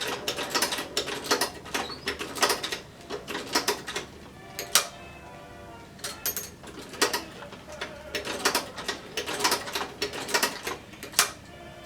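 Sewing machine stitching a zipper into a leather jacket in short stop-start runs, its needle mechanism clattering, with a pause about four seconds in.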